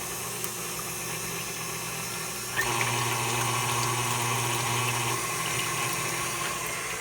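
KitchenAid stand mixer running with a steady motor hum, its beater churning a thin liquid batter of egg, oil and water. The sound swells louder from about two and a half seconds in until about five seconds in.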